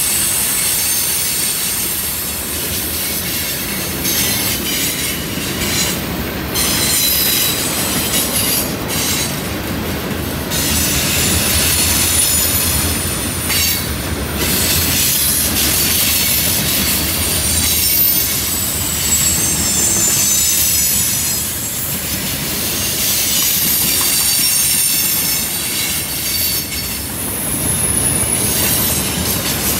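Freight cars rolling past on a curve, their wheels squealing high against the rails in squeals that come and go, over a continuous low rumble of the wheels on the track.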